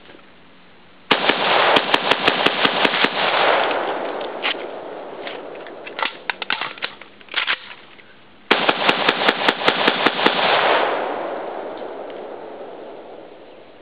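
M&M Cugir M10 AK-pattern rifle in 7.62×39 fired rapidly in semi-auto: a string of about ten shots, roughly five a second, with the reports echoing away. Then a few sharp metallic clacks of the magazine change and charging handle, and a second string of about nine quick shots that also echoes out.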